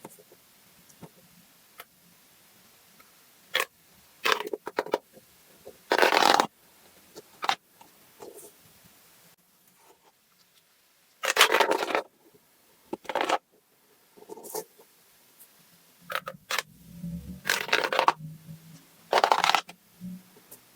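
An irregular series of sharp clicks and noisy crunches, a few lasting about half a second, with quiet gaps between them.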